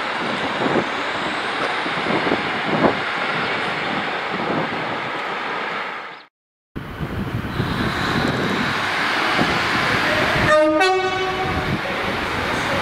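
Railway platform noise with a train running, broken by an abrupt edit about six seconds in. An approaching passenger train then gives a brief two-note horn blast, low then higher, near the end.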